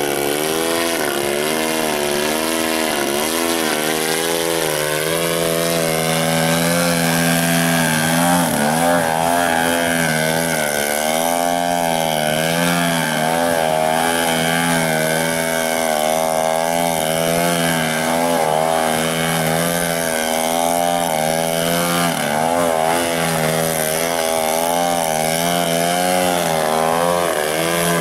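Radio-controlled 3D aerobatic plane's two-stroke gas engine running hard, its pitch wavering up and down continuously with the throttle as the plane hovers and manoeuvres close by.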